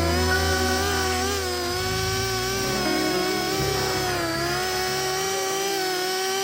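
Stihl MS 661 chainsaw in a Granberg Alaskan mill, running steadily at high revs under load while milling a log into slabs.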